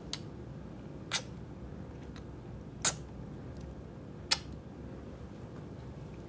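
Quiet room with a low steady hum, broken by about five short, sharp clicks spaced roughly a second apart, the loudest about three seconds in.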